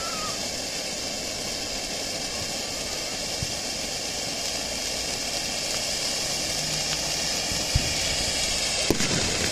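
TNT Fireworks Eternal Eruption consumer ground fountain burning, a steady hiss of spraying sparks. A few sharp pops come through it, two of them near the end.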